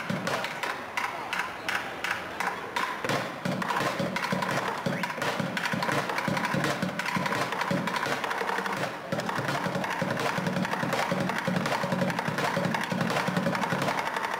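Plastic buckets played as a drum kit with wooden drumsticks: separate sharp strikes for the first few seconds, then very fast continuous rolls across the buckets.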